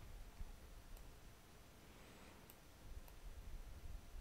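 Near silence with a few faint, sparse clicks at a computer desk, about a second apart near the middle and end.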